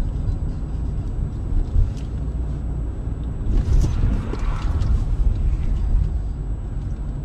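A car driving on a winter road, heard from inside its cabin through a dashcam: a loud, steady low rumble of engine and road noise, with a brief patch of louder hiss about three and a half seconds in.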